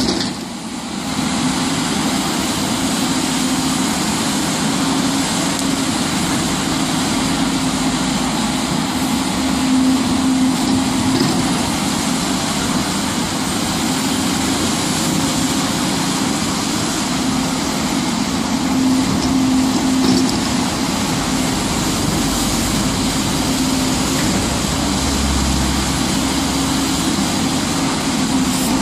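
Hidromek HMK300LC-3 crawler excavator's diesel engine running steadily during digging work, with a constant hum.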